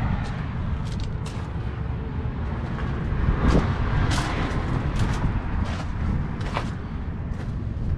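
Footsteps crunching on gravel, irregular sharp strokes that are loudest a little after the middle, over a steady low rumble.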